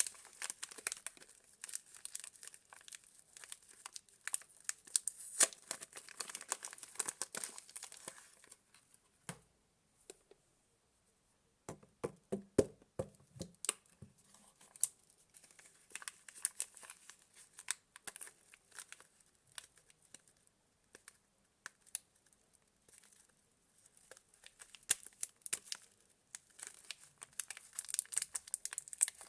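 Soap wrappers being unwrapped and torn open by hand, with crinkling and tearing in bursts. The crinkling is dense at first, thins to scattered clicks and a few soft knocks about twelve seconds in, and grows dense again near the end.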